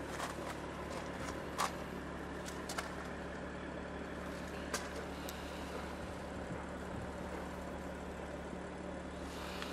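BMW M2's N55 straight-six idling steadily, a low even hum, with a few light clicks.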